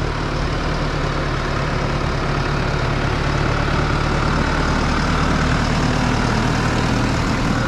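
An engine running steadily under a broad, even rushing noise.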